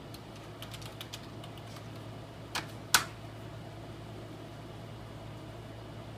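Typing on a computer keyboard: a run of quick key clicks, then two sharper, louder key presses about three seconds in, over a steady low hum.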